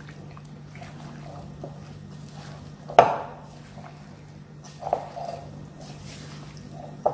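Marinated chicken pieces being mixed with cornflour and flour in a bowl, with a utensil clinking against the bowl: one sharp clink about three seconds in, a lighter one near five seconds and another at the end.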